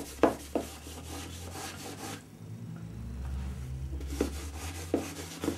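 Wet sponge scrubbing a freshly demoulded fibreglass moulding in short strokes, washing off the PVA release film. The scrubbing pauses for a couple of seconds in the middle, leaving a low hum, and then resumes.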